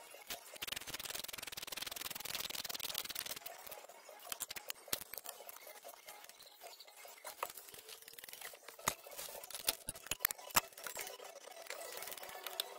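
Hand tools working metal on a van's front wheel hub. A few seconds of dense, rapid scraping clicks give way to scattered sharp metal clicks and taps, several of them close together about nine to ten and a half seconds in.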